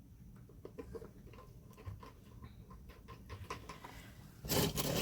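Jewelry being handled and pulled from a box: faint clicks and scratching, then a louder rustling clatter starting about four and a half seconds in.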